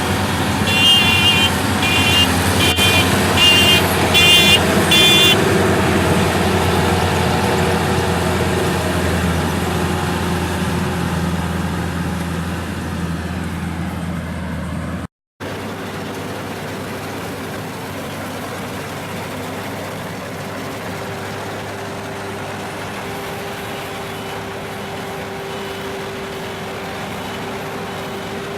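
Rice combine harvester's engine running steadily under load. About a second in comes a run of six short high beeps, and about halfway through the sound breaks off briefly before the steady engine note resumes.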